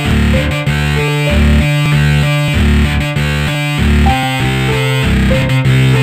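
Instrumental music: a distorted, buzzy riff over a bass line that pulses about twice a second, without vocals.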